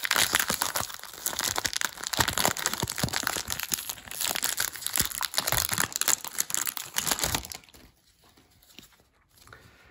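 1993 Topps Baseball Series 1 card pack wrapper being torn open and crinkled in the hands, a dense crackle that stops about seven and a half seconds in.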